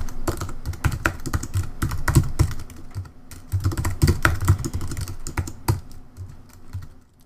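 Typing on a computer keyboard: a quick, uneven run of key clicks that thins out and fades near the end.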